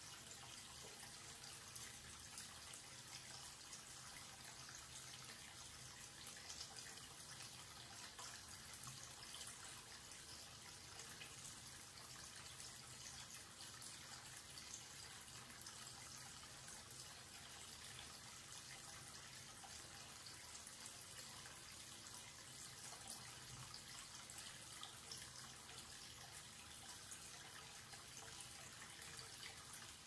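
Faint, steady splashing of a thin stream of tap water falling into a wash basin from a wall-mounted faucet.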